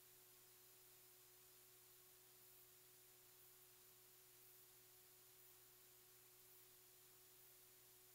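Near silence: a faint steady hiss with a thin steady hum.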